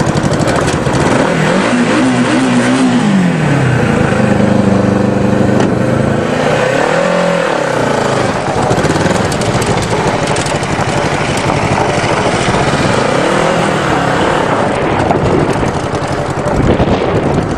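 Go-kart engine running hard under load, revving up and down several times as the kart pulls against a tractor in a tug of war.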